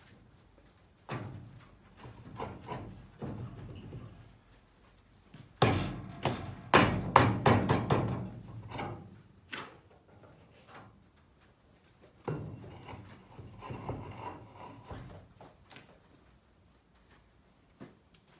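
A wagon wheel being handled and fitted on its axle: bursts of knocking and clattering as the steel rim and solid tire bump against the axle and the wagon, loudest about six to nine seconds in.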